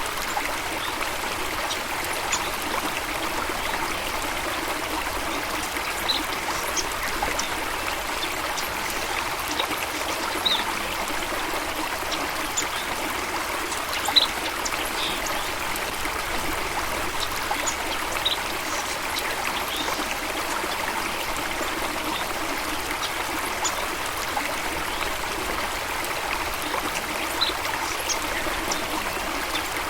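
Running water of a stream or small waterfall, a steady splashing rush, with brief high chirps from birds scattered through it.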